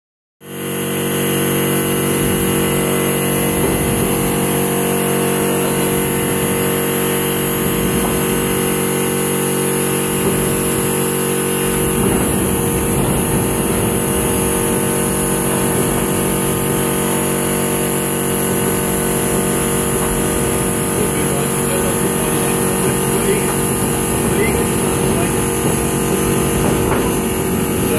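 Cordless drill running steadily as it drives a Zeitler fibre-optic cable blowing machine feeding cable through on compressed air, a constant machine whir with several held tones that starts abruptly just after the beginning.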